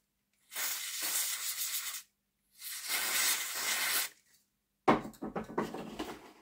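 Aerosol cleaner sprayed in two bursts of about a second and a half each onto the wheels of a model locomotive bogie, followed by a few small clicks and knocks of parts being handled.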